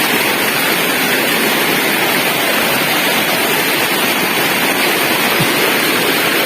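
Waterfall rushing: a loud steady roar of falling water.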